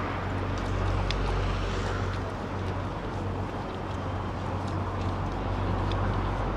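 Steady city street traffic noise heard from a moving electric scooter, with a continuous low hum and a few faint ticks.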